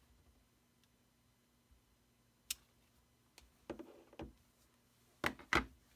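Stamping supplies, a clear acrylic stamp block and ink pad, being handled and set down on a tabletop. There is a sharp click about two and a half seconds in, a short cluster of taps a second later, and two loud knocks close together near the end.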